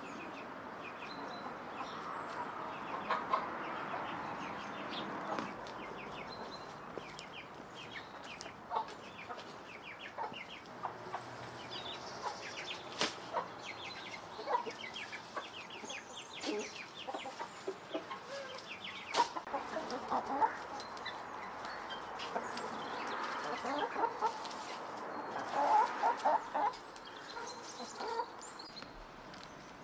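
Chickens clucking softly as they peck at fresh greens on dirt, with many short scattered clicks and rustles among the calls.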